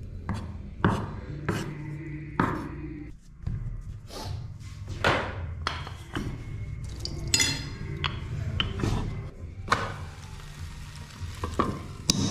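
Background music under kitchen sounds: a knife chopping cooked chicken on a wooden cutting board, several sharp knocks about half a second apart in the first few seconds, then scattered knocks and scrapes from a rolling pin and cookware.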